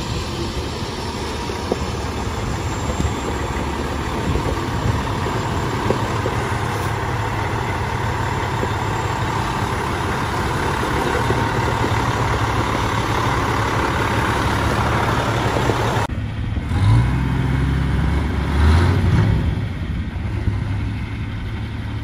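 Semi truck's diesel engine idling steadily. About three-quarters of the way through the sound changes abruptly to a deeper, duller engine sound that swells louder twice.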